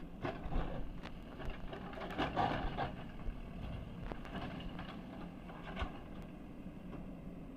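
JCB backhoe loader's diesel engine running steadily, with irregular knocks and clatter over it that are busiest about two to three seconds in.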